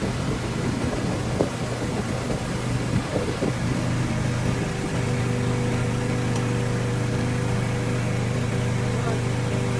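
Boat motor running steadily under way, a low engine drone with a hiss of wind and water. Roughly halfway through, the engine note settles into an even hum with a few steady higher tones.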